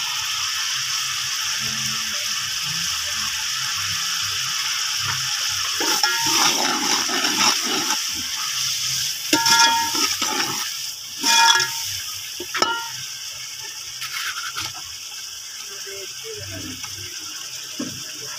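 Spiced masala sizzling steadily in a large aluminium cooking pot. Then a slotted metal spoon stirs and scrapes through it, clanking against the pot a few times between about six and thirteen seconds in, twice with a short metallic ring.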